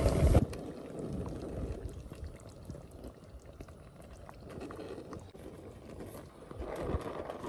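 Pot of crab and fish stew simmering with faint bubbling, while a spatula stirs through it. A brief louder noise comes at the very start.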